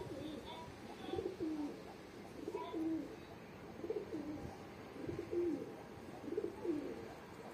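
Pigeons cooing, a low coo repeated a little more than a second apart.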